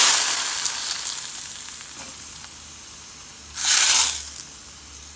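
Hot coconut-oil tempering of mustard seeds, dried red chillies and curry leaves poured from a small iron tadka ladle into a clay pot of curry, sizzling loudly at once and dying away over a second or so. A second, shorter sizzle comes about three and a half seconds in.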